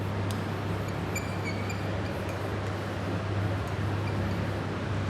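Steady background noise with a constant low hum, a faint click near the start and a brief faint high tone about a second in.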